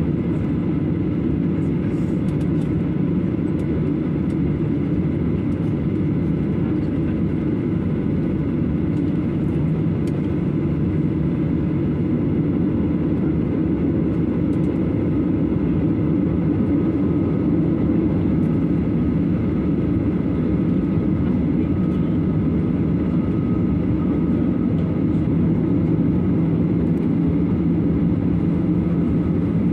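Jet airliner taxiing onto the runway, heard from inside the cabin: a steady low rumble of the engines, with a faint high whine coming in about halfway and the level rising slightly toward the end.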